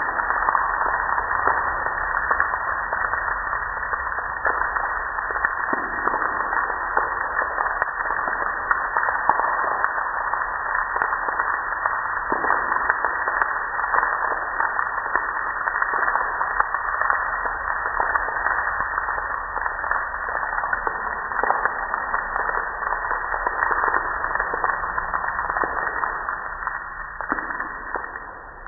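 Water from a garden hose spraying against the underside of a raised sectional garage door, a steady hiss full of small splats and drips as it splashes off the panels. It tails off near the end as the spray stops.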